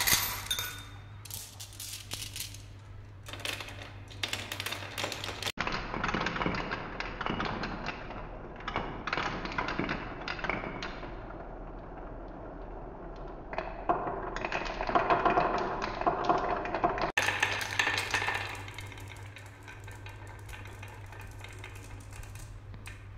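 Glass marbles rolling and clicking on wooden marble-run tracks and clacking into one another: a spell of loud sharp clicks, then a denser rattle that swells twice, then quieter rolling near the end.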